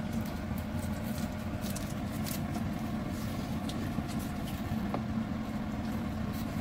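Wooden spatula stirring thick sauce in an aluminium pot, with scattered light knocks and scrapes against the pot over a steady low hum.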